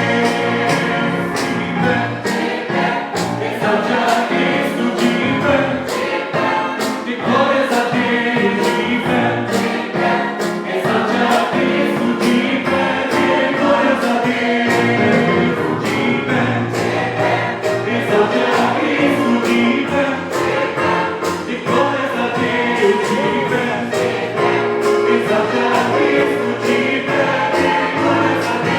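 Church choir singing a gospel cantata number with keyboard accompaniment and a steady beat.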